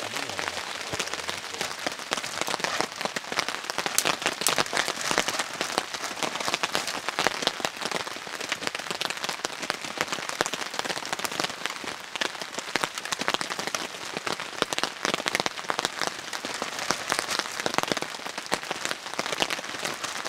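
Steady rain pattering, a dense, even spread of fine drops.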